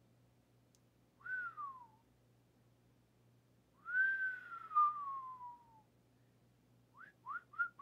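A man whistling: a short whistle that rises and falls, then a long one that rises and slowly slides down, then a few quick short notes near the end.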